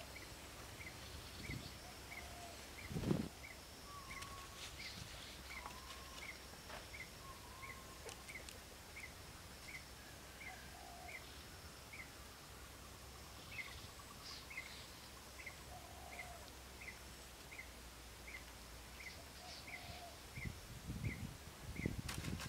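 Rural outdoor ambience: a short high chirp repeating steadily about two to three times a second, with scattered short whistled bird calls. There is a single dull thump about three seconds in and some low rustling near the end.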